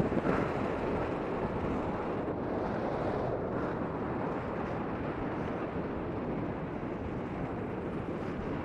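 Steady rumbling wind noise on the microphone, with the wash of sea air and surf behind it.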